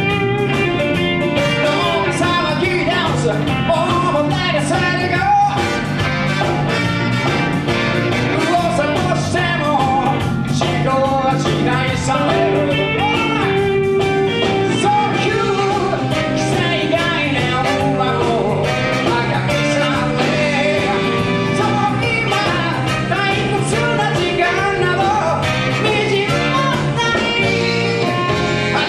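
Live rock-and-roll band playing a song, with a singer and guitar over a steady bass line.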